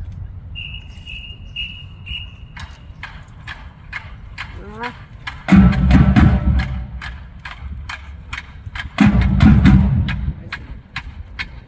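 A marching band's whistle blows four short, even blasts, then drumsticks click out a steady march tempo as the band steps off. The drumline comes in loudly twice, about halfway through and again near the end.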